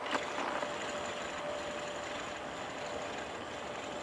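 Siemens Desiro BR642 diesel multiple unit running as it approaches, a steady engine drone with a faint held tone. There is a brief click just after the start.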